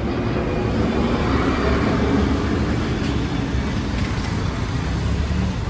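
A car engine running with a steady low rumble, and a couple of faint clicks about three and four seconds in.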